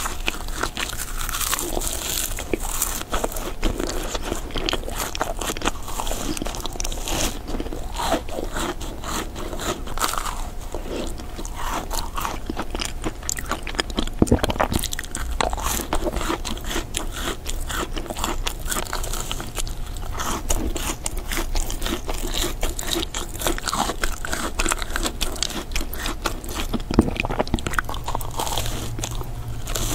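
Close-miked biting and chewing of macarons, with the crisp shells crunching and crackling under each bite, then softer chewing.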